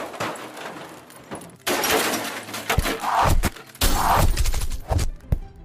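Action sound effects of crashing and shattering: a rush of noise, then a string of sudden impacts with heavy low booms, loudest in the middle and again near the end.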